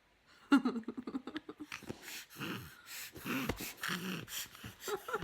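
Voice making rapid mouth sound effects: a quick buzzing trill about half a second in, then a string of short breathy snorts, puffs and clicks.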